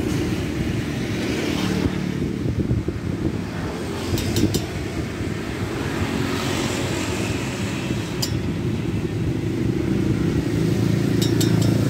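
Steady low rumble of motor-vehicle engines, like road traffic or an idling motorbike. A few faint sharp clicks come about four seconds in, once around eight seconds and three times near the end.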